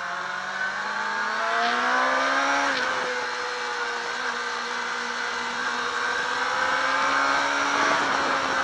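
Sport motorcycle engine heard from on board under hard acceleration, its pitch rising for nearly three seconds, dropping suddenly at an upshift, then climbing slowly again. A steady rush of wind noise lies under it.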